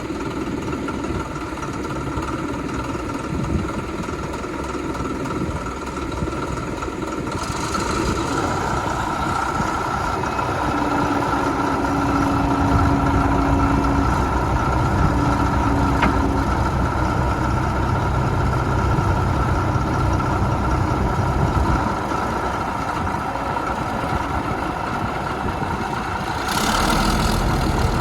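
Cat D8H bulldozer's diesel engine running steadily with no break. It grows louder about a quarter of the way in and runs with a heavier rumble through the middle, easing back later on.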